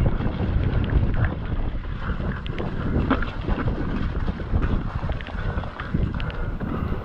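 Wind buffeting the microphone over the steady rumble of a mountain bike riding a wet, rocky trail, with frequent small knocks and rattles from the bike.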